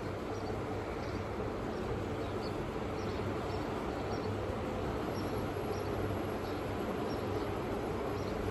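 Steady room ambience: a low hum and background noise with faint, short high chirps scattered through.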